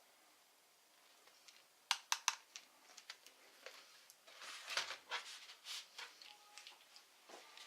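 Faint clicks and taps of small laptop parts being handled: three sharp clicks about two seconds in, then a quicker run of lighter clicks and taps around five seconds in.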